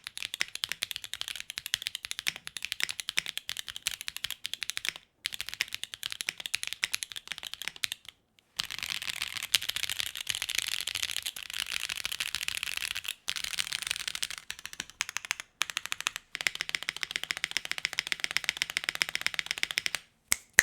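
Fast typing on a mechanical keyboard with factory-lubed Kailh Calligraphy linear switches in a carbon plate: a dense run of clean, clacky keystrokes in several stretches broken by brief gaps.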